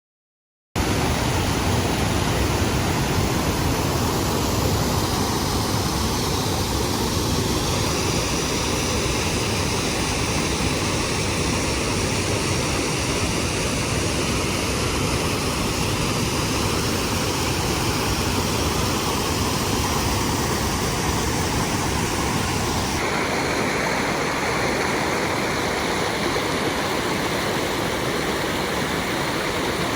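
Steady rush of a mountain creek's flowing water, starting abruptly after a short stretch of dead silence. Its tone shifts suddenly about 23 seconds in.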